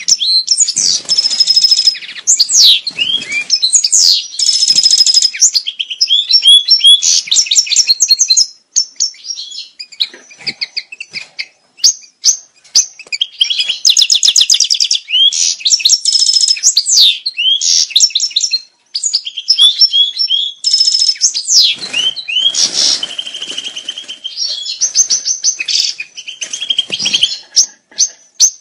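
European goldfinch courtship song: rapid, high-pitched twittering phrases of quick trills and buzzy notes, broken by a few short pauses.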